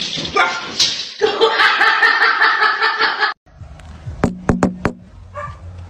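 A person laughing loudly. After a sudden cut, a quick run of four sharp knocks against a wooden door over a low steady hum.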